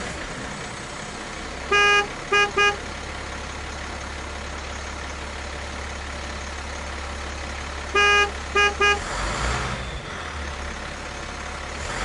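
Vehicle horn honking over a steady low engine drone: one long honk and two short ones, about two seconds in, then the same pattern again about eight seconds in.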